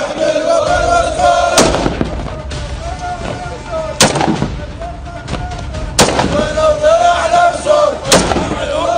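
A group of men chanting in unison, held notes rising and falling, broken by four loud sharp bangs about two seconds apart.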